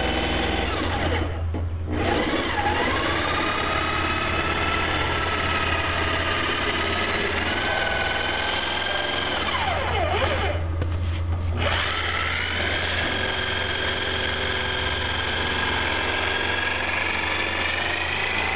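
Corded jigsaw with a thin blade cutting a round hole through the plastic wall of a cistern tank. The motor whine runs continuously, its pitch drifting up and down as the blade works around the curve.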